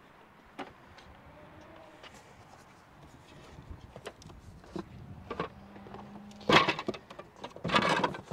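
Footsteps and light knocks on a boat's roof, then a cardboard box handled and set down close to the microphone, with loud scuffs and knocks in the last two seconds.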